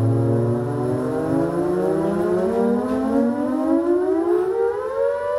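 Synthesizer tone, rich in overtones, gliding slowly upward in pitch like a siren for about five seconds and levelling off at the end. A low steady drone fades out about a second in.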